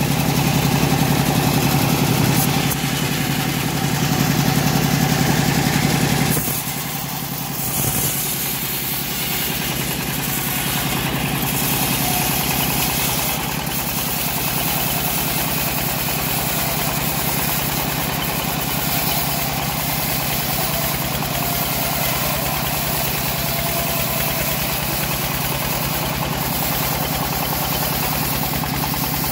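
Engine-driven homemade bandsaw sawmill running steadily. For about the first six seconds there is a heavy low hum, with the band blade in the teak log. The low hum then drops off suddenly and the mill runs on more evenly.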